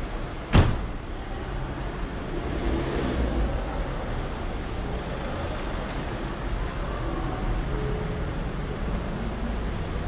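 A car door slams shut once, a sharp bang with a short echo off the concrete car park about half a second in. Then a steady low rumble of car park background noise.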